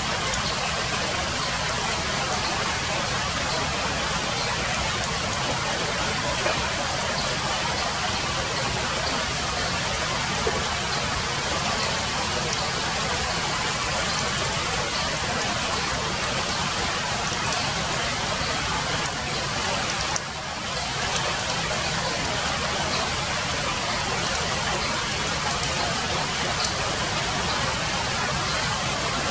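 Rain falling steadily, an even hiss that dips briefly about twenty seconds in.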